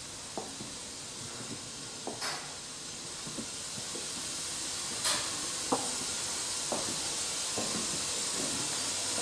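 Steady hissing noise of machinery or air, slowly growing louder, with scattered faint clicks and knocks and a few brief louder spurts of hiss.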